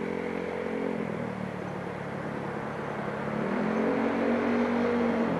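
Motorcycle engine running while riding, with steady wind and road noise. Its note drops about a second in, then climbs again a little after three seconds as it speeds up.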